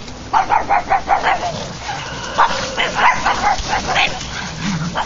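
Pugs barking: a rapid run of high-pitched yapping barks starting just after the beginning, then a second bout of barks in the second half.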